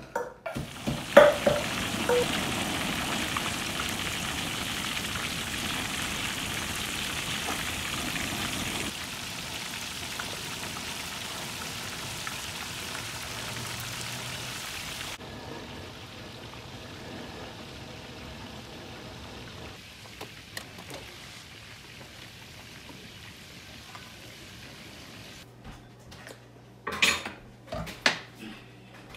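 Walleye deep-frying in a wok of hot oil, the oil sizzling steadily as it is stirred with a metal ladle; the sizzle drops in loudness twice. A few sharp knocks come near the end.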